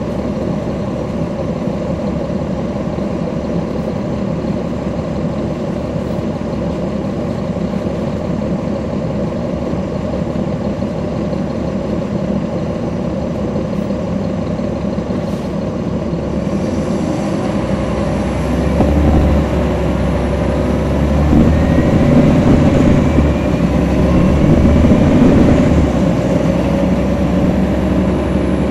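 Caterpillar C13 ACERT diesel of a NABI 40-SFW transit bus heard from on board, running steadily at low speed. About two-thirds of the way in it gets louder as the bus pulls away, with a rising whine as it accelerates.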